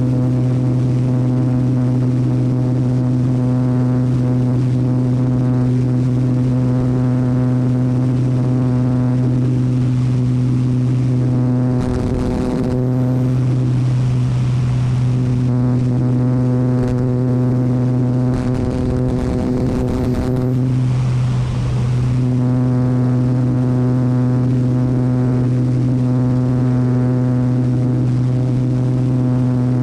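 Agricultural airplane's engine and propeller in cruise, a loud, steady, low drone. Twice, about twelve seconds in and again near twenty seconds, the drone dips briefly under a rush of wind noise.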